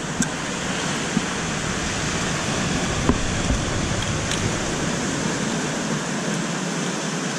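Steady rushing wash of sea surf, with a few faint clicks.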